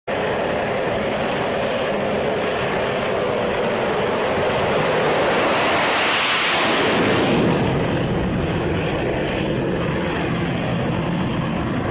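HAL Tejas naval variant (LCA Navy) jet's GE F404 turbofan at take-off power during a ski-jump take-off run: a steady loud rushing noise that swells as the jet passes about six seconds in, then eases as it climbs away.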